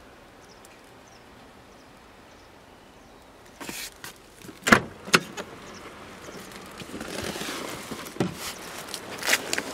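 Quiet car interior, then a series of knocks and clicks with shuffling as someone moves about inside the car, handling the rear door and the front seat back; the sharpest knock comes about five seconds in.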